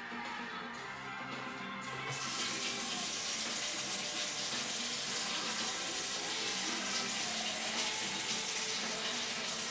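Kitchen sink tap turned on about two seconds in, water then running steadily into the sink, with music playing underneath.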